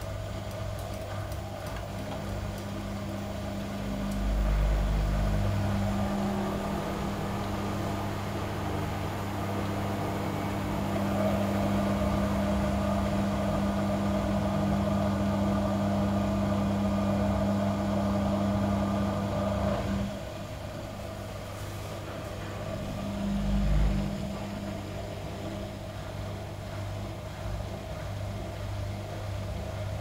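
Gorenje WA65205 front-loading washing machine in the final spin with a king-size duvet: a steady motor and drum hum. It swells with a deep low surge about four seconds in, drops back at about twenty seconds, and surges briefly again near the end.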